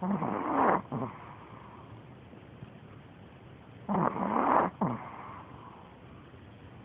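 Maltese dog snoring in its sleep: two loud snores about four seconds apart, each under a second long and followed by a short, softer breath.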